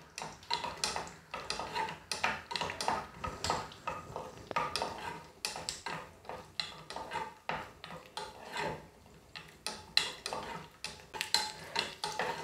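Wooden spatula stirring cashew nuts as they fry lightly in a little coconut oil in a stone-coated non-stick pan. It makes irregular scrapes and taps against the pan, several a second.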